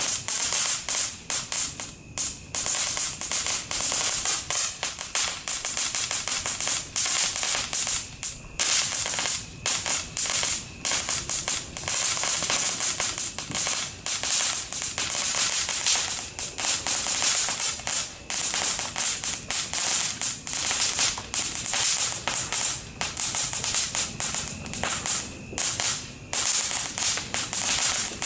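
Cajun Crackler fountain firework burning with a dense, continuous crackle of rapid small pops, broken by a few brief lulls.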